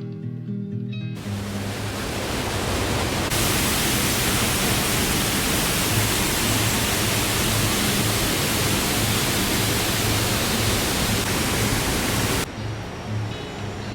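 Steady rush of a large waterfall, even and loud, swelling in over the first few seconds and cutting off suddenly near the end, with soft background music underneath.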